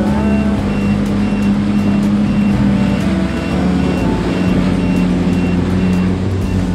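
Jet ski engine running steadily at speed over choppy water, its pitch dropping slightly about halfway through. A high electronic beep repeats about twice a second over it.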